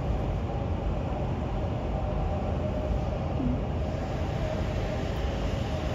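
Steady low machinery rumble with a faint steady hum over it, unchanging throughout.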